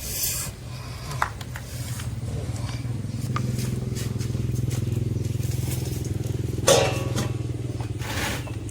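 A small engine running steadily at an even pitch, growing louder over the first few seconds and then holding, with a few sharp clicks over it.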